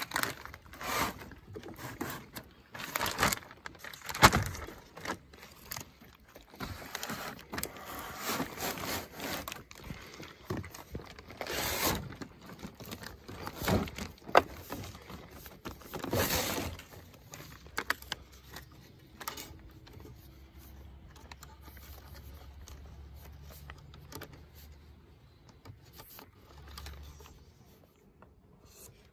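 Handling noises of a plastic jerrycan and plastic bag: the bag rustling and crinkling, with irregular bumps and knocks as the hollow can is shifted against the wooden frame, a few of them loud. The handling grows quieter in the last third.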